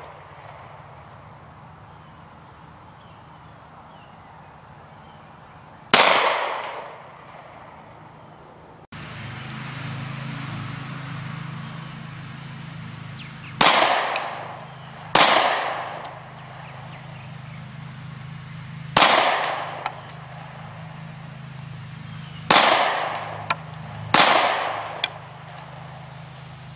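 Six handgun shots, fired one to a few seconds apart, each a sharp crack followed by an echo that dies away over about a second.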